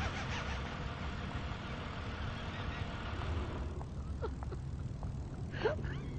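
Car running at low speed with a steady low engine rumble and road noise. About two-thirds of the way in the hiss drops away, leaving the rumble and a few short high chirps near the end.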